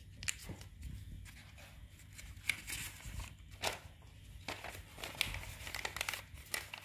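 Notebook paper crinkling and rustling in short, irregular crackles as limes are wrapped one to a sheet and the paper ends are twisted shut.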